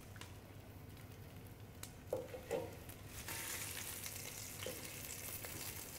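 Floured lamb shanks sizzling in hot olive oil in a stainless steel pot as they are laid in to brown. The sizzle comes up about three seconds in and holds steady, after a few light clicks and knocks.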